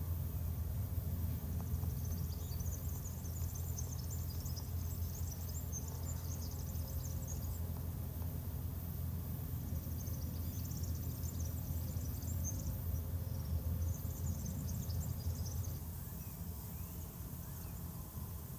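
A steady low hum, with three stretches of rapid, high chirping laid over it.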